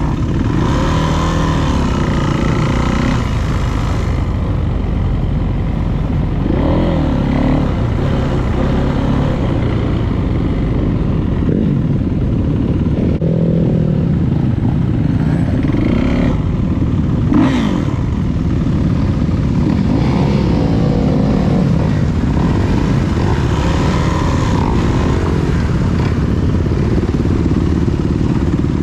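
Dirt bike engine revving up and down as it is ridden, its pitch rising and falling every few seconds over a steady low rumble.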